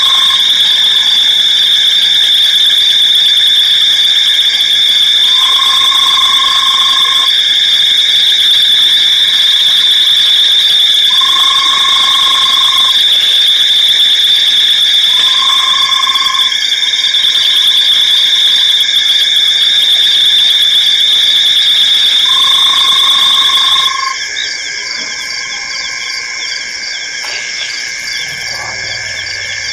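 Night chorus of insects and frogs at a waterhole: a loud, steady, high shrill of calling insects. Over it, a lower frog-like call about a second long repeats every few seconds. About 24 s in, the loudest shrill stops and the chorus goes quieter.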